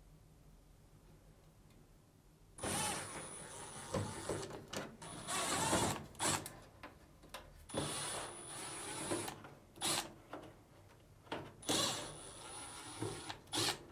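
Cordless drill-driver backing Phillips screws out of a dryer's sheet-metal frame: several short runs of the motor with a high whine, with small clicks between them as each screw comes out.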